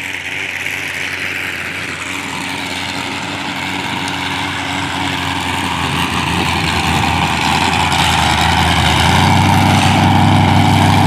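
A car engine idling, growing steadily louder, its low hum strongest in the last couple of seconds.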